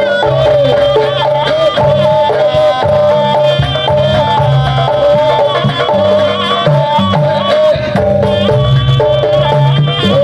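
Traditional Javanese jaranan music: an ornamented lead melody with bending notes over steady drumming and sustained low tones.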